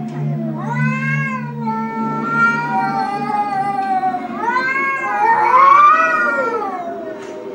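Cats yowling at each other face to face: long, drawn-out, wavering calls that rise and fall in pitch, swelling loudest about five to six seconds in, the warning caterwaul of a confrontation.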